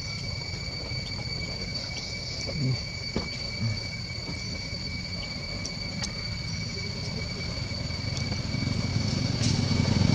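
A steady, unbroken high-pitched insect drone at one pitch, with a few faint ticks and rustles of leaf litter. Near the end a motor engine comes in low and grows louder.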